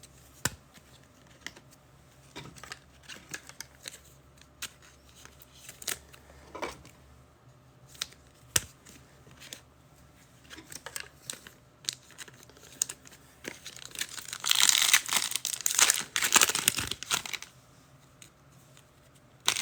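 Cards and card sleeves being handled with scattered light clicks and taps, then about three-quarters of the way in a few seconds of loud crinkling and tearing as a foil trading-card pack wrapper is ripped open.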